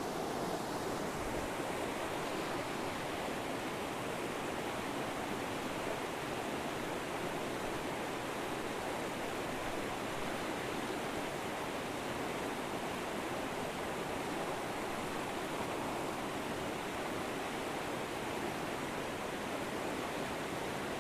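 River water rushing over rocks: a steady, even rush of flowing water.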